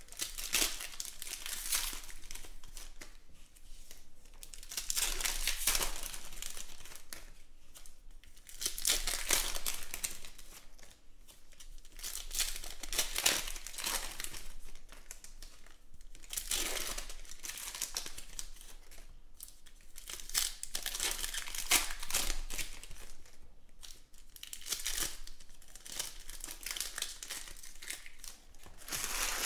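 Shiny foil trading-card pack wrappers crinkling and tearing as the packs are opened, in repeated, irregular bursts.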